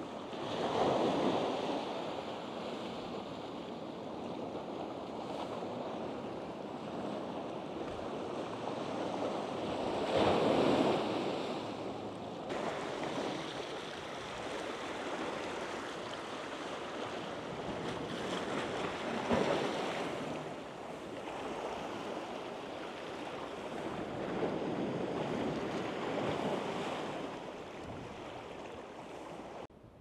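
Small sea waves washing in and out on a slipway and rocky shore, the surf swelling four times, several seconds apart.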